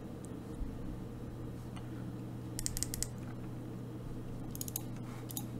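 Two short runs of quick clicks from a computer keyboard and mouse, about halfway through and near the end, over a steady low electrical hum.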